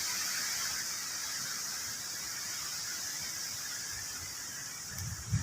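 Strong gusting wind rushing through leafy trees: a steady hiss of rustling leaves that slowly eases off.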